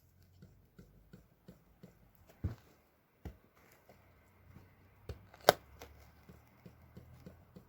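Front shock absorber strut from a 2010 Citroën Berlingo being worked by hand, giving a string of light knocks with a few louder ones, the loudest about five and a half seconds in. The knock comes from inside the strut at the piston rod, the knock the owner traced in the front suspension.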